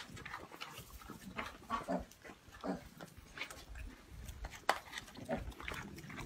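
A pig grunting now and then while eating, over irregular crunching and munching as several animals chew chopped fruit and lettuce.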